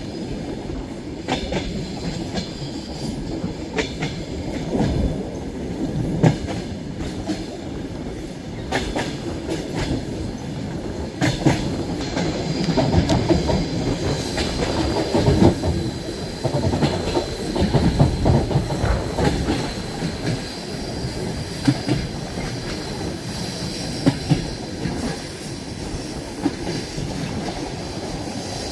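Passenger train running on the rails: a steady rumble with irregular clacks of the wheels over rail joints. A faint high squeal of the wheels comes in over the second half.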